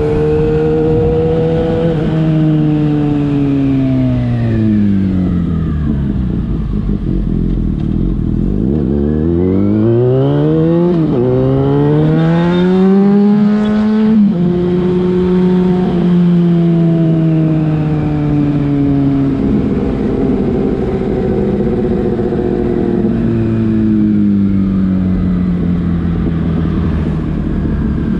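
Yamaha FZ6's inline-four engine through a Leovince aftermarket exhaust, heard while riding. The engine note falls as the bike slows, then rises hard under acceleration with two quick drops in pitch at upshifts, about eleven and fourteen seconds in. After that it settles into a steady run and eases gradually lower.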